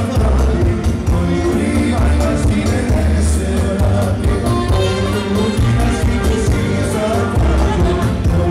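Live Macedonian folk dance music: saxophone and trumpet playing a melody with a male singer on a microphone, over an amplified backing with a strong bass and a steady beat.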